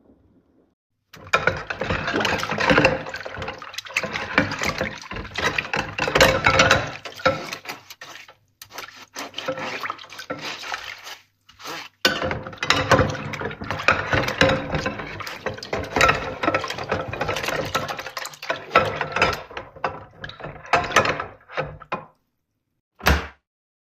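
Water running and splashing in a kitchen sink, stopping briefly a couple of times and cutting off near the end, with a short last splash.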